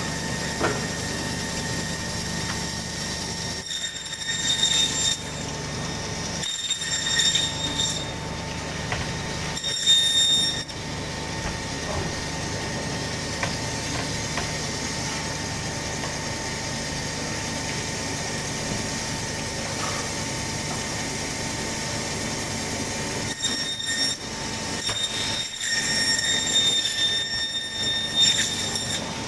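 Meat bandsaw running with a steady hum, its blade cutting through goat bone and meat in several louder, ringing spells: three short ones in the first eleven seconds or so and a longer stretch near the end.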